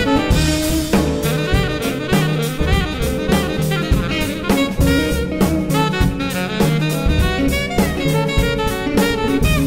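Jazz septet playing, several melodic lines at once over a steady beat.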